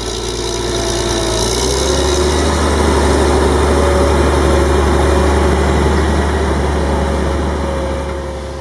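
Caterpillar Challenger MT765C rubber-tracked tractor's diesel engine running steadily under load while pulling a Väderstad Cultus 420 cultivator, growing louder as it passes close and fading again near the end.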